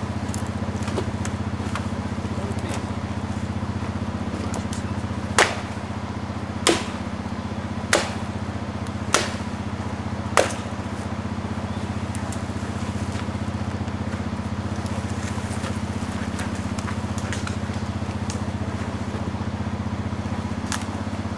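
ATV engine idling steadily while an axe chops into a fallen tree: five sharp strikes about a second and a quarter apart, midway through.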